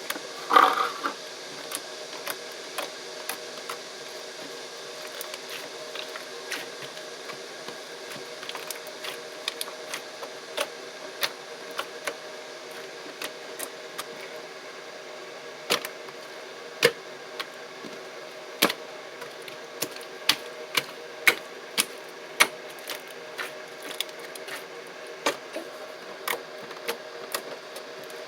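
Toy slime being pressed and stretched by hand, giving off irregular sharp clicks and pops from trapped air, a few a second, the loudest about half a second in.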